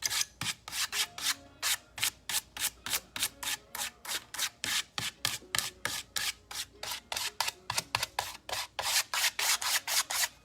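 Almost dry paintbrush dry-brushing across a wooden sign, in quick, even, scratchy strokes about four a second.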